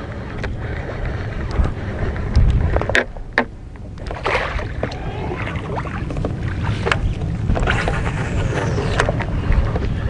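Wind and water around a small fishing boat, with scattered splashes and clicks as a Beaver Bait musky lure is reeled in fast and churns at the surface near the hull.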